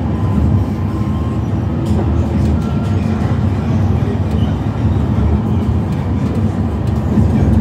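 Alstom Citadis Dualis tram-train heard from inside while running at speed: a steady low rumble of wheels on rail, with a few faint whining tones that come and go.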